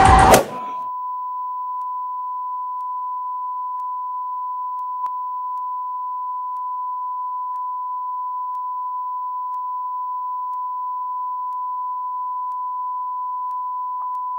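A loud crash with music cuts off abruptly about half a second in. A single steady electronic beep tone follows and holds unchanged, with a faint click about five seconds in and another near the end.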